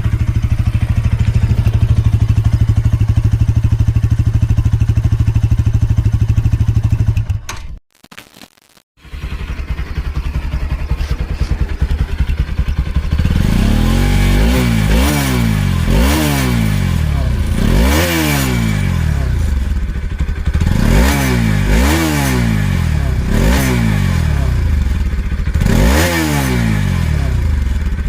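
Bajaj Pulsar NS200 motorcycle's single-cylinder engine idling steadily at standstill, cutting out briefly about eight seconds in. It then idles again and, from about halfway through, is revved over and over, roughly once every two seconds, each rev rising and falling back.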